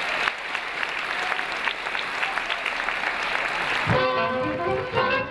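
Audience applauding, then about four seconds in a swing band strikes up with brass.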